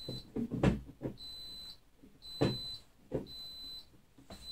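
Anycubic Wash & Cure station beeping: a high single-tone beep about once a second, a warning that its cover is not seated properly. Louder rustling and knocks of clothing brushing close to the microphone cut across the beeps.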